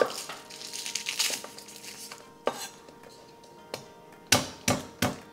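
Chef's knife knocking on a wooden cutting board as garlic cloves are trimmed and peeled, a few scattered knocks. A quicker run of louder chops comes near the end.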